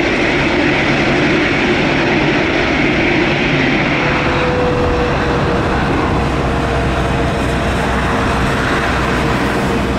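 Jet airliner engines: a steady jet noise from a departing airliner, changing about four seconds in to the closer sound of a Boeing 787-8's engines on the runway, with a steady whining tone over a low rumble.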